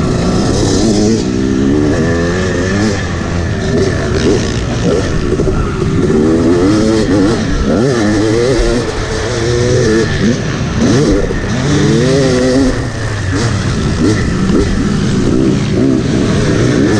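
Yamaha YZ250 two-stroke dirt bike engine under hard riding, revving up and falling back over and over.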